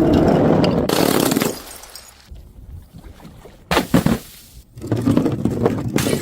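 Glass bottles smashing: one smash about a second in, then two sharp impacts close together about four seconds in, with breaking glass scattering in between.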